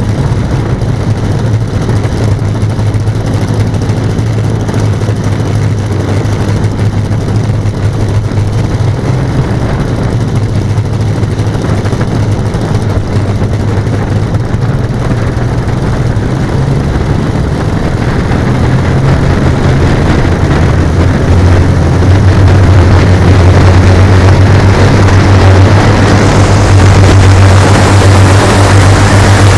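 Engines of a radio-controlled B-17G scale model running with a steady drone. The drone gets louder about two-thirds of the way through.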